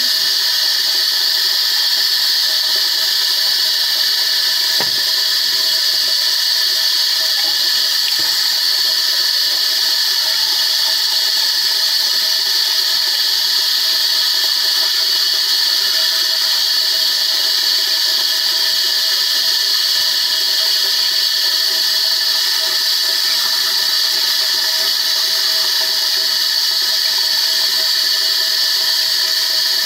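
Steady rush of a bathroom tap running into the sink, unchanging throughout, with a high whistle riding on it.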